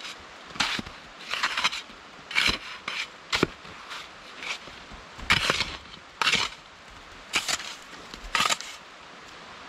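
Slow footsteps crunching in snow, about one step a second.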